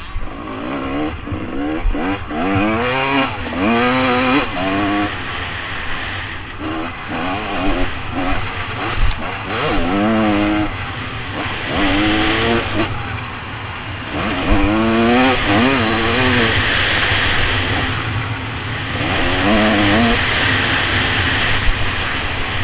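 Motocross bike engine revving hard on board, its pitch climbing and dropping again and again as the rider accelerates, shifts and backs off through turns and jumps, with stretches of rushing noise.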